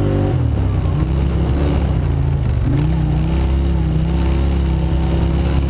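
Quad (ATV) engine running while the machine is ridden. Its pitch dips briefly soon after the start and again about two and a half seconds in, then holds steady.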